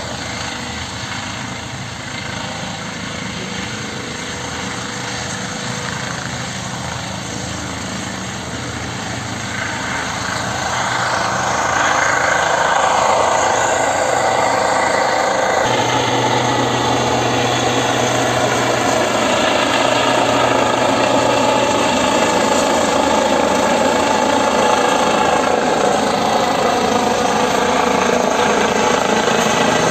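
Eurocopter EC135 helicopter's turbines and rotor blades running as it lifts off the field and climbs away. The sound grows louder about ten seconds in and then holds steady, with a deeper hum joining a few seconds later.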